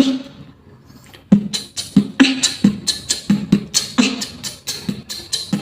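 Beatboxing: one sharp hit, a short lull, then from about a second in a fast steady beat of low kick-drum thumps alternating with crisp snare and hi-hat sounds, about four to five hits a second.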